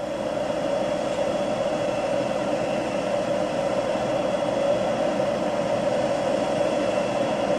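A steady, unchanging drone with an even hiss and a strong low hum.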